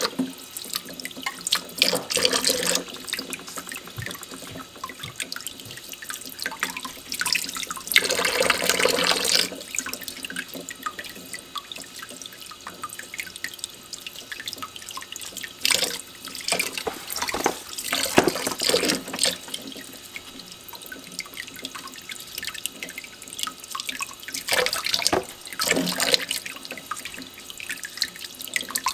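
A thin stream of tap water running into a stainless steel sink while eggs are rubbed clean with a cloth under it, the splashing swelling irregularly as the hands move the eggs through the stream.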